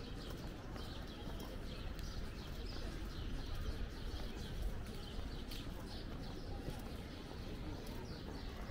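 Outdoor city-park ambience: small birds chirping in quick, repeated short notes over a steady low rumble of distant city traffic.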